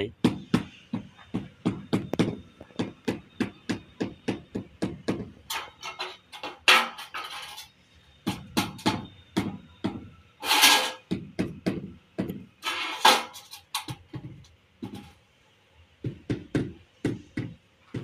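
Mallet tapping ceramic floor tiles down into the mortar bed, quick repeated knocks at about three a second, broken by a few short, louder, hissier noises.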